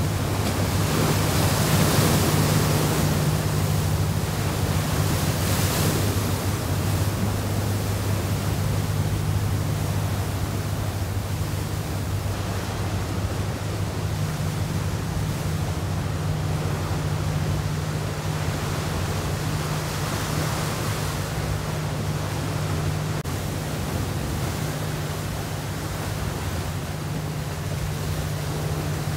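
Steady low hum of a large container ship's engines heard across the water, at two low pitches, over a constant hiss of wind and sea. The hiss swells into a louder rush twice in the first six seconds.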